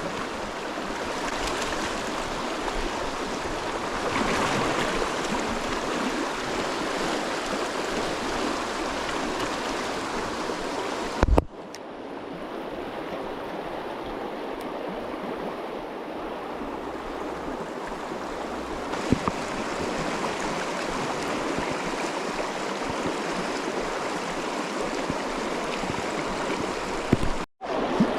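Rushing water of a mountain stream, a steady hiss, with a sharp knock about eleven seconds in and a brief sudden dropout near the end.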